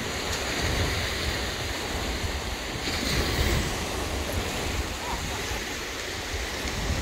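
Wind buffeting the microphone in uneven low rumbles over a steady wash of surf.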